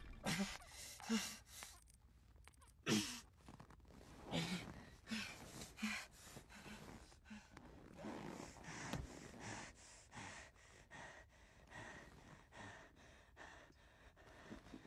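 A man breathing hard: loud, short gasps with a voiced catch in the first half, then quicker, fainter panting breaths about two a second.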